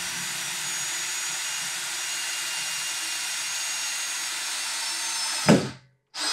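Cordless drill/driver running steadily, driving a long screw through a metal table base's mounting plate into a hard maple tabletop. Near the end it gives a short, louder falling sweep and stops.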